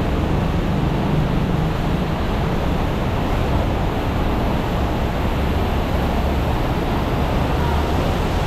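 Steady rumble of traffic on the elevated road overhead, mixed with water splashing in a fountain.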